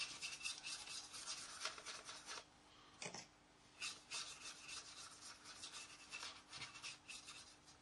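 Faint scratchy scrubbing of paintbrush bristles working a thin weathering wash into the matt-painted plastic wing of a scale model aircraft, in rapid short strokes with a pause about halfway through.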